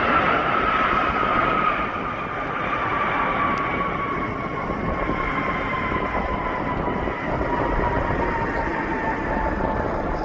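Jet aircraft engine roar with a whine that falls slowly in pitch throughout, a little quieter after about two seconds.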